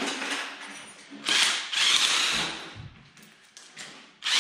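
Cordless power driver whirring in one burst of about a second, spinning out a bolt from the top end of an LS engine, followed by a few faint metal clicks.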